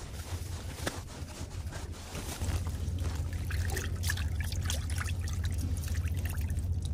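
Herring being swished around by hand in a bucket of water, with small splashes and trickling water. A steady low rumble runs underneath and grows louder a couple of seconds in.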